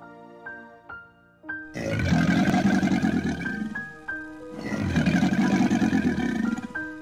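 Two long, rough roars from a crocodile, each about two seconds with a short break between, over soft background piano music.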